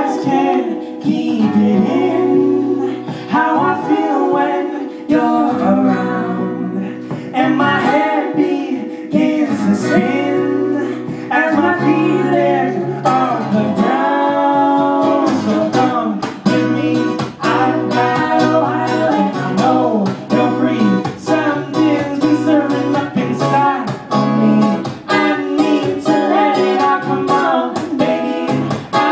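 Live acoustic pop song: a strummed acoustic guitar accompanying singing.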